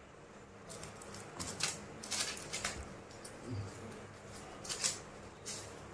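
Thin plastic bag crinkling in short, irregular crackles as a kitten paws at it, with a cluster of crinkles about two seconds in.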